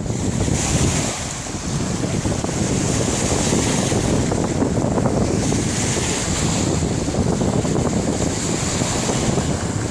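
Wind buffeting the microphone: a steady, loud rushing noise with a rumbling, fluttering low end.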